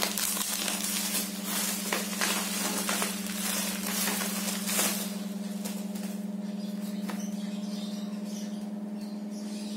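Bubble-wrap packaging crinkling and rustling in the hands as it is unwrapped, dense for about the first five seconds and then quieter. A steady low hum runs underneath.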